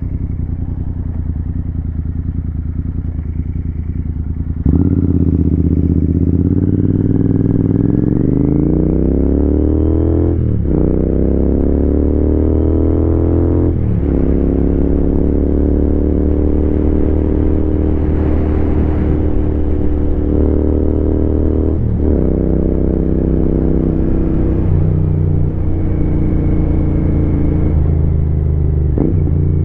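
Royal Enfield Continental GT 650's 648 cc parallel-twin engine pulling away under throttle: the note climbs, drops back at two upshifts a few seconds apart, then settles into a steady cruise with a few short dips later on.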